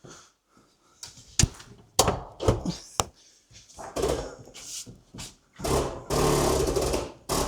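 A series of knocks and thuds from hands-on work at the car, with one sustained rough, noisy sound lasting about a second and a half near the end.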